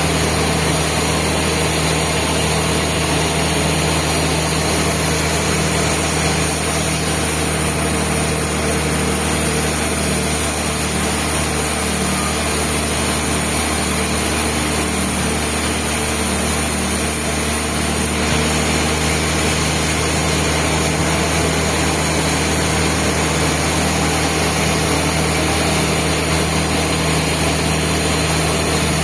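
Band sawmill running with a steady, unbroken mechanical drone.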